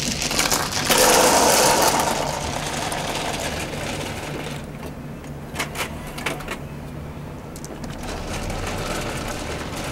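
Automatic mahjong table running with a steady mechanical whir as it shuffles and sets up the tiles. A louder rattle of tiles comes about a second in, and a few sharp tile clicks follow around the middle.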